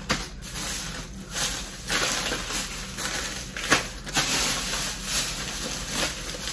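Plastic shopping bag and packaging rustling and crinkling as items are rummaged through, with a few sharper crackles.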